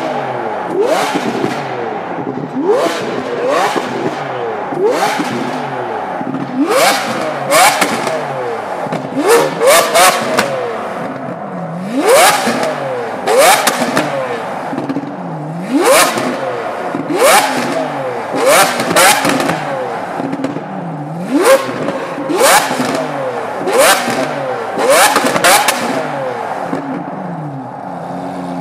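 Modified Lamborghini Aventador's naturally aspirated V12 being revved hard over and over, roughly every second or two. Each blip rises sharply in pitch and falls back, and each is punctuated by loud cracks and pops from the exhaust as it spits flames.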